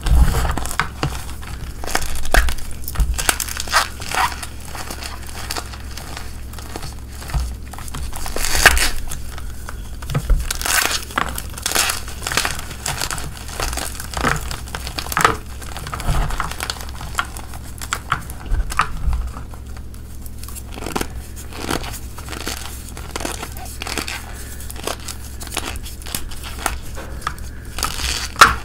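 Gym chalk blocks crushed and crumbled by bare hands in loose powder: irregular, crisp crunches and crumbling, some louder snaps among softer crumbles.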